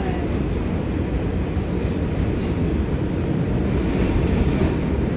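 New York subway car running between stations: a steady low rumble of wheels on track and car noise heard from inside the car.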